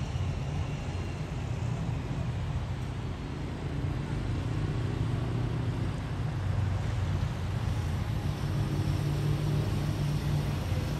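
Road traffic heard from high above a city street: a steady low rumble, with a faint engine hum coming up in the middle and again near the end.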